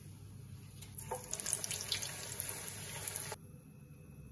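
Hot oil sizzling and crackling in a frying pan used for deep-frying koftas, growing louder about a second in with many small pops, then cutting off abruptly shortly before the end.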